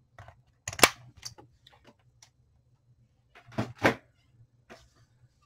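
Sharp knocks and clatters of a multimeter and its test leads being handled and moved on a workbench: one loud knock about a second in, then a pair of knocks a little after three and a half seconds, with lighter clicks between.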